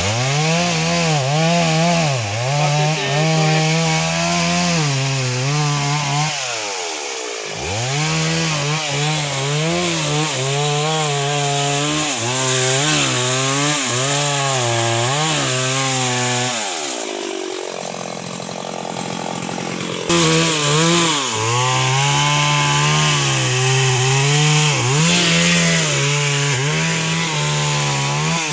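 Two-stroke chainsaw cutting into a waru tree trunk, its engine pitch rising and falling as it labours under load. Twice, about six seconds in and again around seventeen seconds, the engine note drops away before it revs back up.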